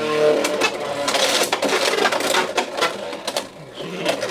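Beyblade X spinning tops battling in a plastic stadium: rapid, irregular clicking and clacking as they strike each other and the stadium.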